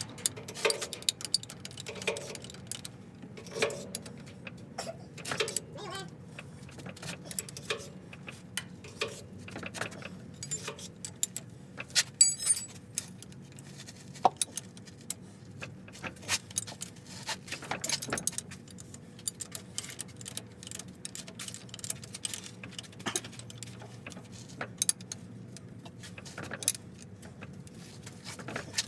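Irregular metallic clinks and taps of hand tools against metal parts, with a louder cluster of ringing clanks about twelve seconds in, over a low steady hum.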